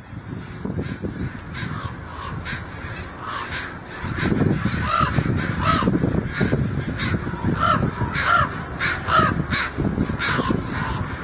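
Crows cawing: a rapid series of short, harsh caws that grows louder and more frequent about four seconds in, reaching about two caws a second.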